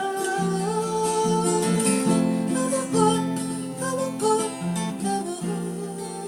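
Acoustic guitar music, notes plucked and strummed between the song's sung lines.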